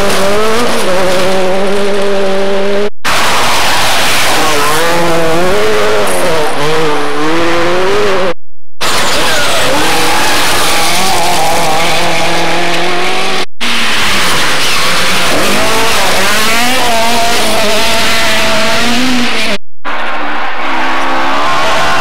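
Rally cars driven flat out on a gravel forest stage, their engines revving hard with the pitch repeatedly climbing and dropping as each car passes. Four short dropouts cut from one car to the next.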